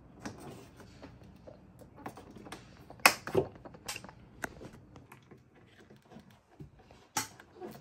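Sharp plastic clicks and taps as the third brake light lens and its trim are pressed back into their clips, with handling rustle between. The loudest clicks come in a cluster about three seconds in, with another near the end.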